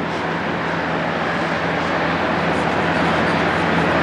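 Steady background hiss and rumble with a low, even hum, slowly growing louder.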